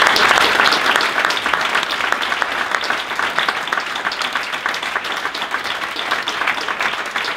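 Audience applauding, a dense patter of many hands clapping that is loudest at first and slowly dies down.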